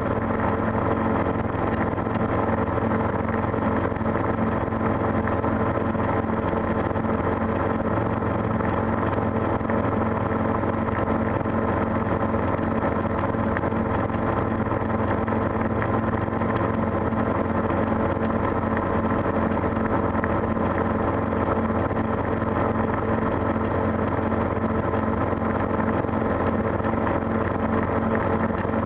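Calidus gyroplane's engine running steadily at idle with the throttle closed, an even engine drone heard from inside the enclosed cockpit during an idle-power descent.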